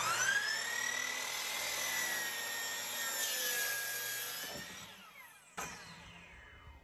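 Kobalt 12-inch 15-amp sliding compound miter saw starting up with a rising whine, running at a steady pitch while it cuts through a curly maple board, then winding down with a falling whine. There is a sharp click about five and a half seconds in.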